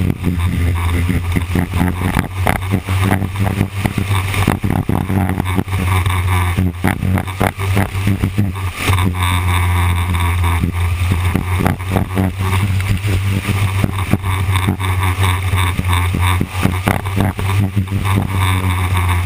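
Engine of a small winged dirt-track sprint car heard onboard at race speed: a loud, steady drone that barely changes pitch, with frequent short crackles over it.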